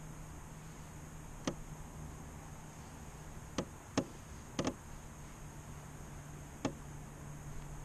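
A handful of sharp, scattered knocks and taps, with a close pair just after the middle, from fishing gear bumping about in a canoe. Under them runs a faint steady hum.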